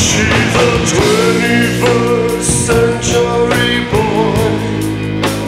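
Rock song with a singing voice playing as background music.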